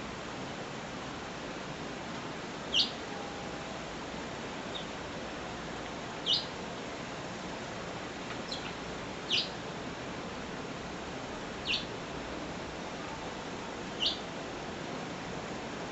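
A small bird chirping: single short, high chirps repeated about every two to three seconds, over a steady background hiss.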